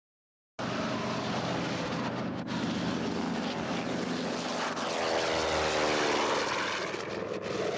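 Propeller-driven warbird airplane's piston engine running, starting abruptly about half a second in, with a sweeping shift in tone around the middle.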